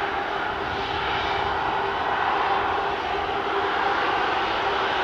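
Airbus A330-300's twin jet engines running at low taxi power as the airliner turns onto the runway. A steady rushing whine with a constant hum underneath.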